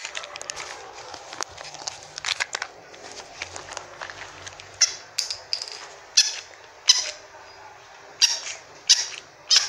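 Plush toy puppy making short, squeaky electronic yaps, about one every half second to second from about five seconds in, with clicks and rustling from handling before that.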